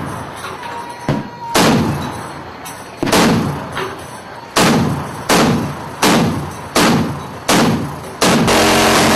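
Single heavy shots from a ship's deck-mounted cannon, about eight of them, each trailing off in a rumble, at uneven gaps of roughly one second. Near the end a steady loud rushing noise with a low hum takes over.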